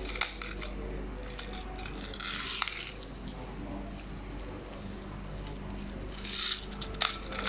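Plastic 6mm BBs rattling and clicking inside an Airsoft Innovation Tornado 2 BB grenade as it is twisted and turned in the hand. The twisting works jammed BBs free so they roll down the grenade's spiral feed path. The rattle comes in bursts, loudest about two seconds in and again about six seconds in, with a few sharp clicks near the end.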